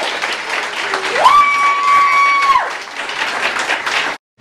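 Audience applauding, with one long, high whoop of a cheer that rises about a second in, holds for about a second and a half, then falls away. The sound cuts out abruptly just before the end.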